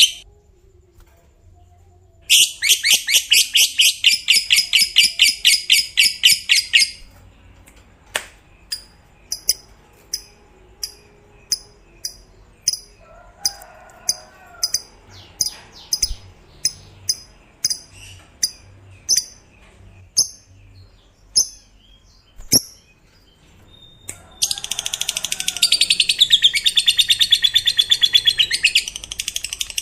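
Lovebird singing its long chattering trill ("ngekek"), a fast run of shrill repeated notes lasting about five seconds. It follows with single sharp chirps about one and a half a second, and another long trill starts near the end.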